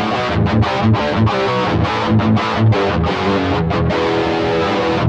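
Gibson SG electric guitar played through an Xvive T1 Golden Brownie distortion pedal: distorted chords and short riffs with brief gaps between strokes, while the pedal's tone control is being tried out.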